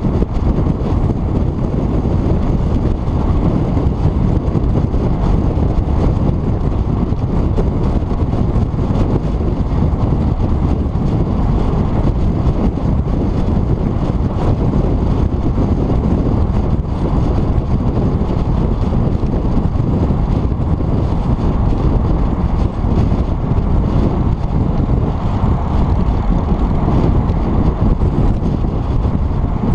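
Steady low wind rumble and road noise from a car driving at speed, picked up by a GoPro Hero 3+ mounted on the car's hood with its microphone out in the airflow.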